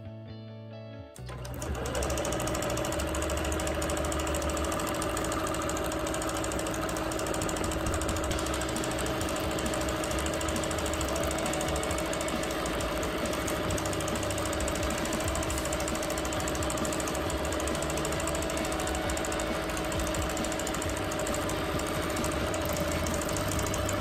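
Bernina Q24 longarm quilting machine stitching steadily in free motion: a rapid, even needle chatter over a constant motor hum. It starts about a second in, just as a guitar intro fades out.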